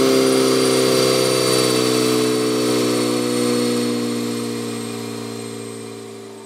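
Audi A5 2.0 TFSI engine through an Armytrix valvetronic exhaust, running at a steady engine speed with an even, unchanging exhaust note that gradually fades out.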